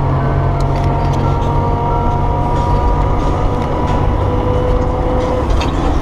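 Gear whine from a car's drivetrain while driving: a few steady high tones over the low rumble of the engine and road, heard inside the cabin.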